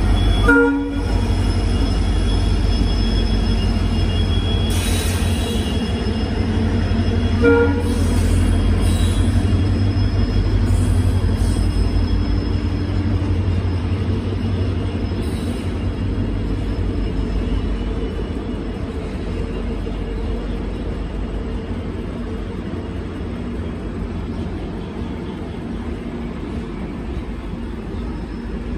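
A passenger train of LHB coaches passing at speed: a steady heavy rumble and clatter of wheels on the rails that eases slowly toward the end. Two short train horn blasts come about half a second in and again about seven and a half seconds in.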